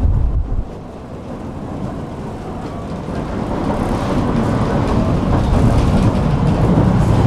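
Tram running on its rails, heard on board as a low rumble that dips suddenly about half a second in and then builds steadily again.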